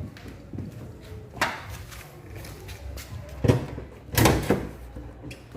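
Several heavy clunks and thuds from the car's body: one about a second and a half in, another a couple of seconds later, and a louder double knock soon after.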